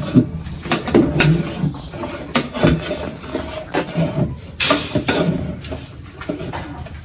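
A long metal ladle stirring a large metal pot of hot liquid, scraping around inside it, with irregular clatters and knocks against the pot, the sharpest a little past halfway.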